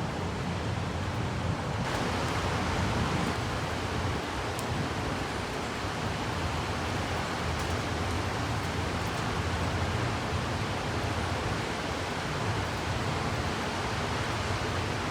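Steady rushing noise of a rainstorm's wind and rain, growing brighter about two seconds in.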